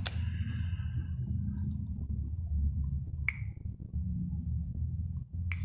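Steady low electrical hum, with a sharp click at the start and two short clicks about three seconds in and near the end as a smartphone's touchscreen is tapped.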